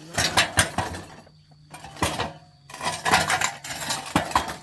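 Metal tools and parts clinking and knocking against each other in two flurries of sharp clicks, with a short lull between them.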